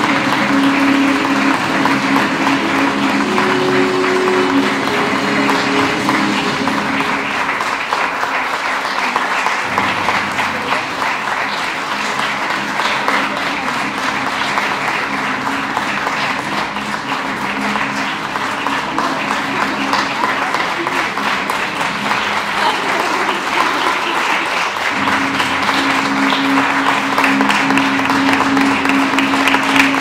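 Audience applause throughout, with recorded music playing underneath. The music is clear for the first several seconds, drops back, and comes up again about five seconds before the end.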